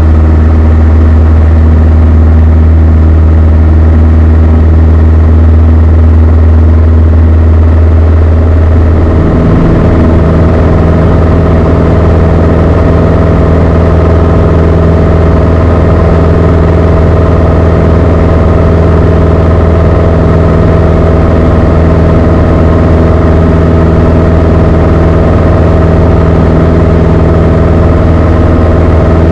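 Beechcraft Sundowner 180's four-cylinder Lycoming engine and propeller running at takeoff power, heard loud from inside the cockpit as the plane accelerates and climbs out. The low engine note shifts slightly about nine seconds in.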